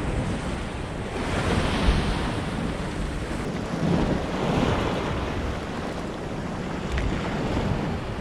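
Sea waves washing onto the shore, swelling and falling a couple of times, with wind rumbling on the microphone.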